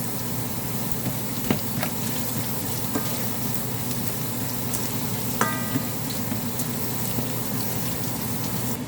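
Shrimp and garlic sizzling steadily in hot oil, with a few clicks of a utensil against the pan and one short ringing metal clink about five and a half seconds in.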